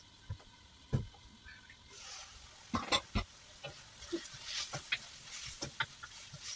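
A few knocks as the wok's glass lid is lifted off, then diced tomatoes and onions sizzling in the hot wok while a wooden spatula stirs and scrapes through them, with scattered clicks.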